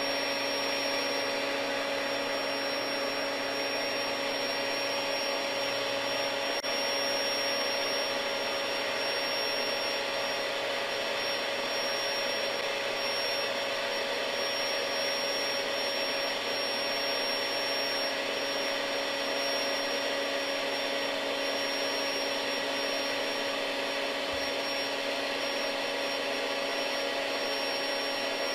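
SoundAsleep Dream Series air mattress's built-in electric pump running steadily in deflate mode, drawing the air out as the mattress collapses. It is a constant rush of air with a steady high whine over it.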